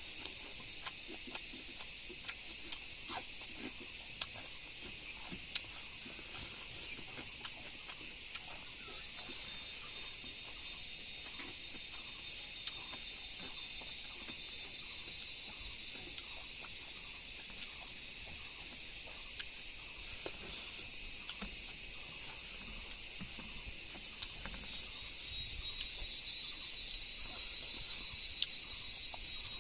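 Insects chirring steadily in a high, even chorus, with a faster pulsing trill coming in louder about three quarters of the way through. Scattered small clicks and taps sound over it.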